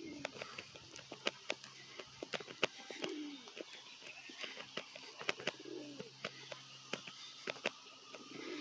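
A pigeon or dove cooing: a low call that falls in pitch, heard about every three seconds, four times in all. Many sharp, irregular clicks run underneath.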